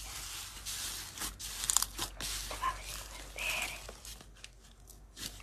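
Slime being squeezed and stretched, making crackly, crinkling noises with short clicks and pops, quieter near the end.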